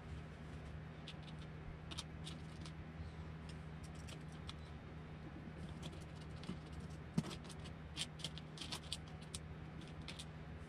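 Light clicks and taps of hands handling and fitting the plastic and metal parts of an RC truck chassis, over a steady low hum; a sharper click about seven seconds in, then a quick run of clicks.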